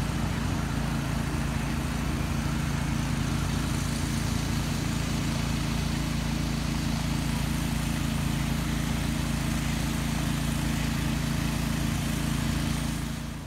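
Outboard motor of a small fishing boat running steadily, a constant low engine drone with a steady hiss over it.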